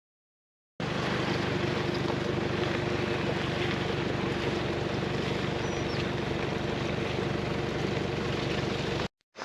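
A vehicle engine running steadily at a constant speed, with wind and travel noise. It starts abruptly about a second in and cuts off just before the end.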